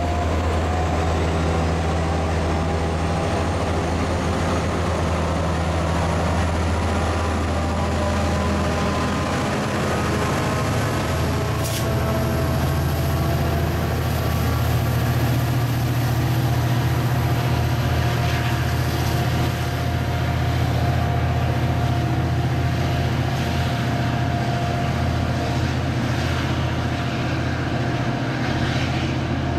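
MBTA commuter rail diesel locomotive running with a steady low drone as the train moves along the line. The drone changes about a quarter of the way in, when a second locomotive takes over, and there is one brief click a little before the middle.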